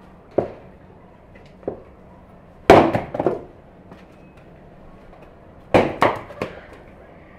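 Firewood knocking and clattering as pieces are handled and dropped: two single wooden knocks, then two loud clusters of several knocks each, about three seconds apart.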